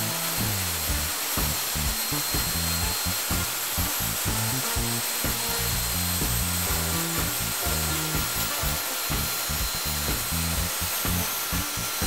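Background music with a stepping bass line, over a steady even hiss of air from cordless blowers running continuously.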